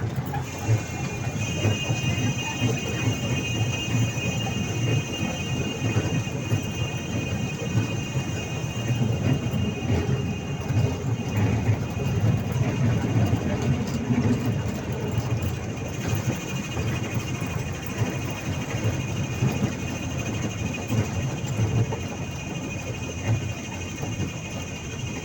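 Park toy train running along its track, heard from aboard: a steady rattling rumble of wheels and carriages, with a steady high whine coming in about half a second in and holding on.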